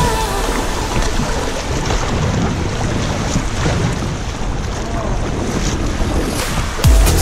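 Shallow river riffles rushing around a packraft, with wind buffeting the action camera's microphone. Electronic dance music with a steady beat cuts back in just before the end.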